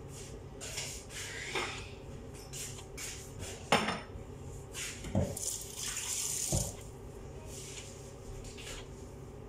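Dishes and utensils clinking and clattering, with a tap running for a couple of seconds midway. The loudest is a sharp clank about four seconds in.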